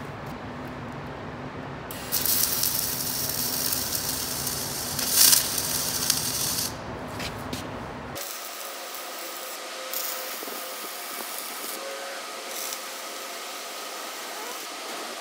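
MIG welding arc crackling as tack welds go onto a new steel side-cutter plate on an excavator bucket. One long burst of a few seconds comes first; later come shorter, fainter bursts.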